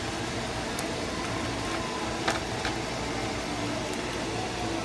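Curry simmering in a stainless pan with a steady hiss while a silicone spoon stirs it, knocking lightly against the pan twice in the middle.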